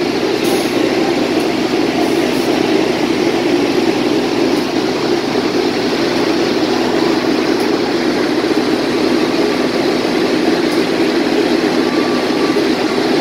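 CC206 diesel-electric locomotive's engine running steadily as the locomotive creeps forward to couple onto its train.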